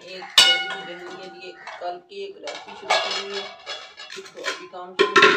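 A stainless steel pot lid set down with a sharp clang that rings on for about a second, followed by repeated clinks and knocks of steel pots and a bowl as the lid comes off and a wooden churning stick is worked in the pot, the loudest clatter near the end.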